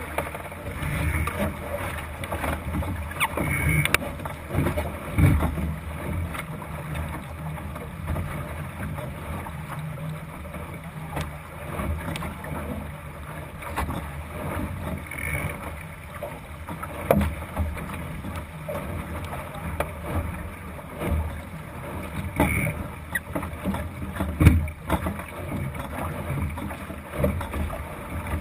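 Water rushing and slapping along the hull of a Thistle sailing dinghy under way, over a steady low rumble. Scattered knocks are heard several times.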